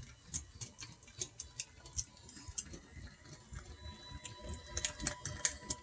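NEMA 17 stepper motor with a 3D-printed planetary gearbox running slowly: faint irregular ticking, a few ticks a second and denser near the end, over a faint thin whine that grows a little stronger in the second half.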